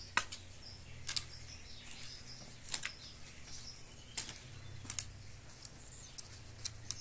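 Hoe blade scraping and knocking through soft, moist manure as the bed is shaped, in irregular short strokes.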